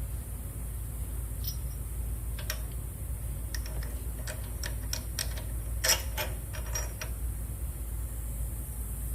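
Light metallic clicks and taps from hand work on a go-kart's chain drive, a dozen or so irregular clicks, the loudest about six seconds in, over a steady low hum.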